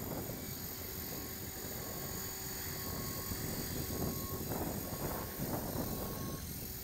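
Electric RC helicopter (T-Rex 450) with its brushless motor and rotor running at a steady pitch and a faint high whine above. A short beep sounds about once a second, and a rushing noise swells a few times.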